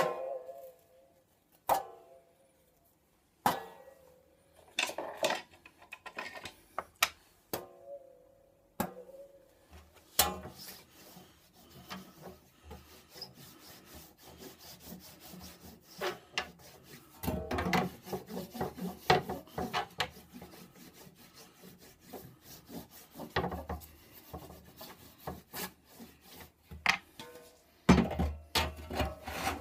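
A few separate wooden knocks as tools are handled on the workbench, then a long run of quick scraping and rubbing strokes as the blade of a handsaw is rubbed and wiped by hand.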